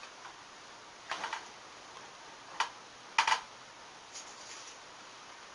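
Handling noise from metal detector parts being fitted together: a few sharp plastic clicks and taps, the loudest a quick double click about three seconds in, then a soft rustle.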